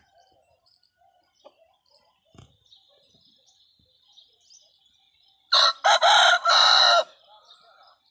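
Aseel rooster crowing once, a loud call in three joined parts about a second and a half long, a little past halfway through.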